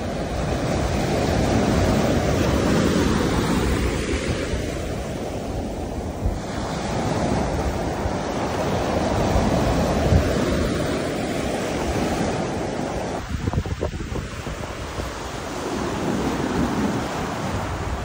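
Ocean surf breaking and washing up a sandy beach, the wash swelling and easing every few seconds, with wind rumbling on the microphone. Gusts buffet the microphone about two-thirds of the way through.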